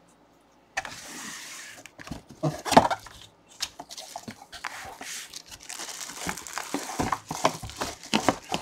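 Plastic bag wrapping crinkling and rustling, with scrapes and knocks against a cardboard display box, as a full-size football helmet is pulled out of the box. It starts about a second in and keeps on in uneven bursts, with one sharper knock about three seconds in.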